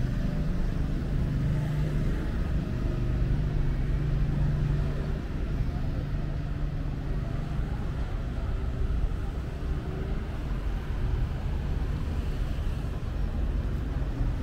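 Street traffic: car engines running and passing with a steady low rumble. A steady engine hum is strongest over the first five seconds, then fades.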